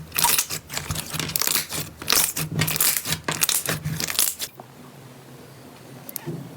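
Slime being squeezed and worked by hand, giving dense crinkling, crackling sounds that stop about four and a half seconds in.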